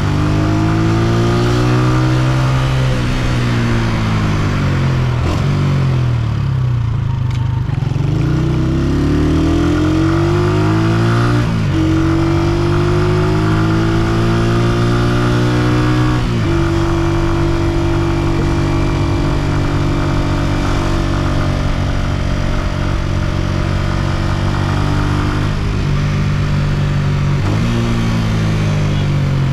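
Honda CG125's single-cylinder four-stroke engine under way. Engine speed falls as the bike slows, then climbs as it accelerates through the gears, with short breaks in the note at upshifts about a third and halfway in. It then holds a steady cruising pitch, and engine speed changes again near the end.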